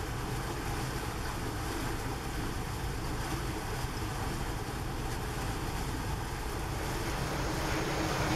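Steady drone of a ship's engines with wind and water noise, as heard on deck.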